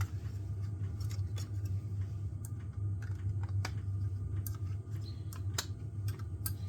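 Scattered light clicks and taps of hard plastic and metal as parts inside an open laptop are handled and worked loose, over a steady low hum.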